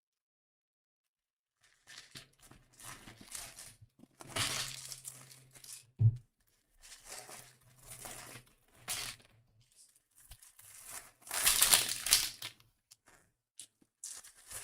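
Wrapping on trading-card packaging being torn and crinkled open in a series of irregular rustling tears, starting about two seconds in. There is a single low thump just after six seconds.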